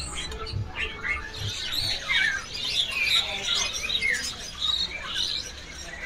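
Many caged songbirds chirping and calling over one another: a dense chatter of short, high calls and quick rising and falling whistles.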